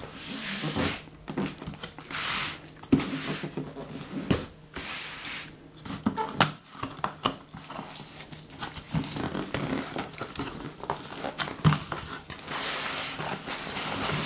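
Packing tape ripped off a cardboard shipping box in several short hissing strips, with cardboard flaps scraping and knocking as the box is opened. Near the end, a fabric carry bag rustles and scrapes against the cardboard as it is pulled out.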